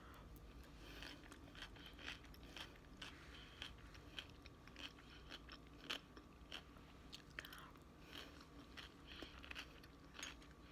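A person chewing coleslaw, faint and close up: irregular small crunches and wet mouth clicks.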